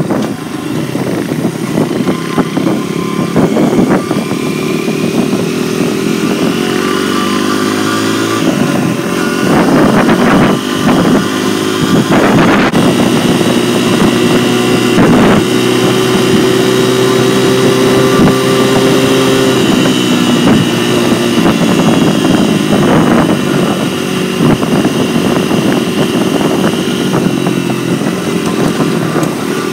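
Dirt bike engine running under way, heard from on the bike. Its pitch climbs over the first several seconds, changes about eight seconds in, holds fairly steady, and drops about twenty seconds in.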